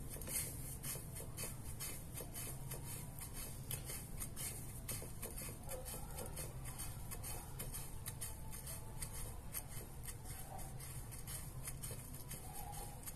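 Hand pressing a batter-coated chicken strip into dry panko breadcrumbs and grated parmesan: a faint, continuous crackle of crumbs, many small clicks, over a steady low hum.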